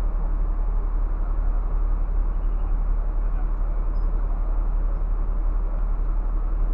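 Scania coach's diesel engine idling steadily, heard from inside the driver's cab as a low, even drone.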